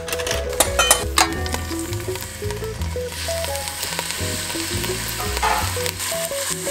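Pre-marinated beef sizzling in hot oil in a pot as it is stirred with chopsticks. There are a few sharp clatters in the first second, and the sizzle grows louder and thicker about three seconds in.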